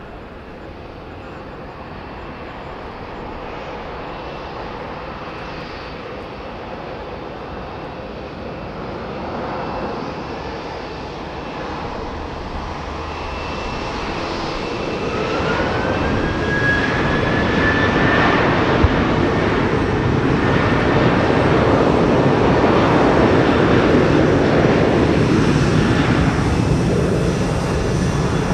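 Boeing 787-9 airliner's Rolls-Royce Trent 1000 jet engines at taxi thrust, growing steadily louder as the aircraft approaches and passes close by. A whine rises in pitch for a few seconds about halfway through.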